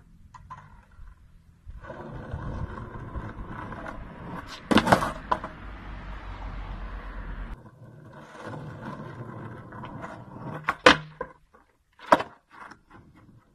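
Skateboard wheels rolling on asphalt, a steady rumble, broken by sharp clacks of the deck slapping the ground several times during trick attempts, loudest about five seconds in and again near the end.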